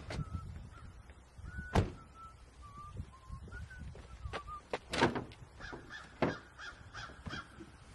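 Birds calling with short, sliding chirps, joined by a few sharp clicks and knocks as a car's hood is released and lifted, the loudest about two seconds and six seconds in.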